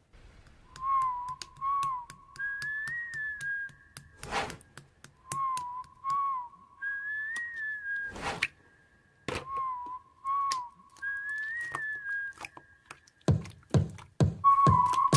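A whistled melody: a short low phrase answered by a higher, longer one, played three times over. Faint clicks run through it, and two thumps land about four and eight seconds in.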